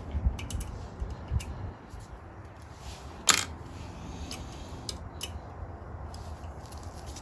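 Small metal parts being handled at an engine's cylinder head: a few dull knocks at first, then light clicks, with one sharp click about three seconds in. These are the valve collets being picked out with a magnet retriever and put into a plastic tub.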